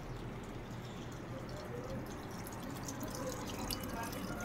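Top-loading washing machine filling with water: a steady run and drip of water, with a few faint ticks.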